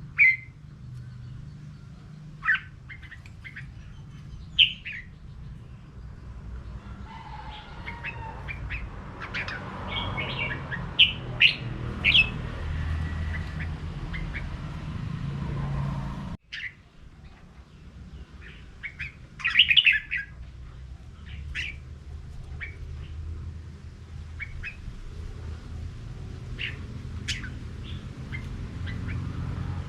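Red-whiskered bulbuls singing against each other in short, bright whistled phrases, some louder and nearer than others, over a steady low rumble. The sound drops out for a moment about halfway.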